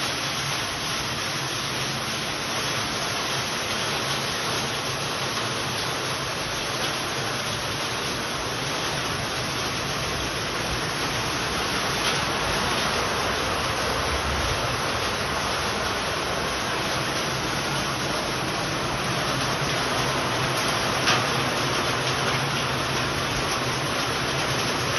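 Heavy rain pouring steadily, with a couple of brief sharp taps standing out, one about halfway through and one near the end.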